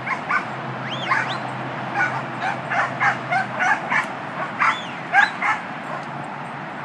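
A dog yipping and whining: a rapid series of short, high-pitched yelps, some sliding up in pitch, that stops about a second before the end.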